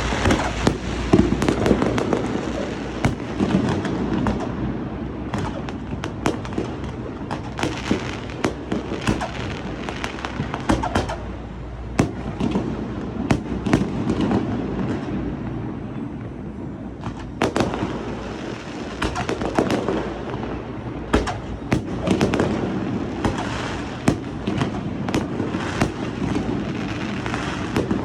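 Fireworks display: a dense, continuous run of sharp bangs and crackles over a steady low rumble, easing off briefly about halfway through before building again.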